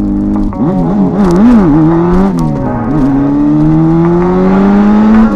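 Motorcycle engine revving and accelerating. Its pitch wavers up and down, then climbs steadily for about two seconds before dropping suddenly near the end as it shifts gear.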